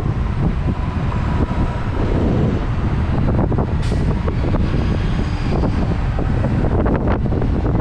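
Wind buffeting a helmet-mounted microphone on a moving Sur Ron Light Bee X electric dirt bike, a steady loud low rumble. A brief hiss cuts through about four seconds in.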